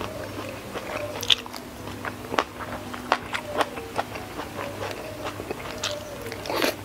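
Close-miked chewing and eating mouth sounds: frequent short wet smacks, clicks and light crunches as shrimp and rice with sambal are eaten by hand.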